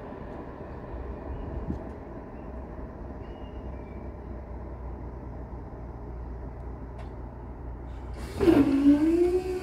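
Low steady rumble, then about eight seconds in a sudden loud clunk and a hum that dips in pitch and settles on a steady tone as the level crossing's barrier machinery starts up to raise the barriers after the train has passed.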